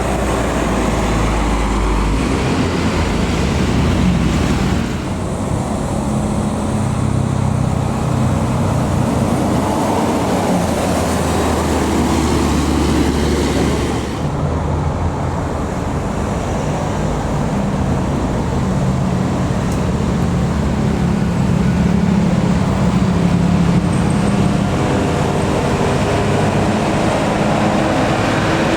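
Heavy road vehicles, buses and trucks, running past with a steady engine drone and tyre noise; the sound shifts abruptly about five and fourteen seconds in.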